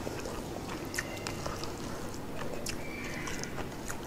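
Quiet sounds of a man eating rice and chicken curry with his fingers: chewing with scattered faint clicks.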